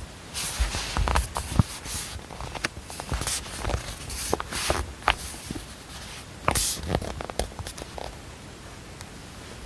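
Desk items being handled: irregular small taps, clicks and knocks with several brief rustling swishes, the loudest about half a second and six and a half seconds in, over a faint steady hiss.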